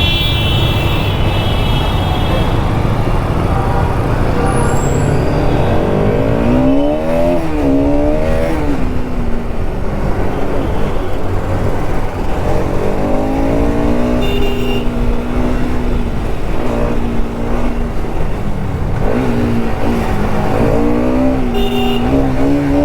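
Bajaj Pulsar RS200's single-cylinder engine accelerating hard under way. Its pitch climbs and drops back at each gear change, several times, over a constant rush of wind.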